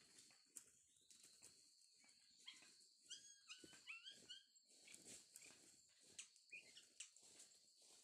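Faint forest background with a steady high-pitched tone. Between about a third and halfway in comes a short run of high, bending animal calls.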